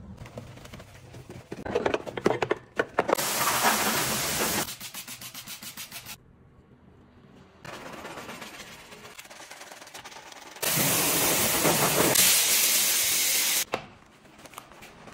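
Car-wash work sounds: a short burst of loud, steady spraying hiss a few seconds in and a longer one later on, with quieter wet scrubbing and rubbing of a foamed alloy wheel and tyre with a wash mitt and brush in between.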